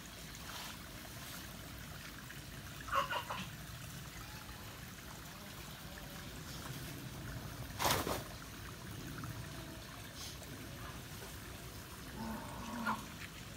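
Steady trickling of water, typical of light rain. A brief clatter comes about three seconds in, and a single sharp click about eight seconds in.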